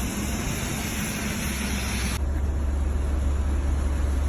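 Steady rushing noise of storm wind on the microphone over a low steady rumble. About two seconds in, the hiss drops off abruptly while the rumble carries on louder.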